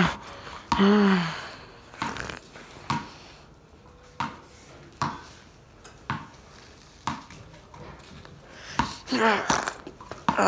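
A man's wordless vocal sound about a second in, falling in pitch, and another short one near the end. Between them, scattered light clicks and rustling as the phone moves against his shirt.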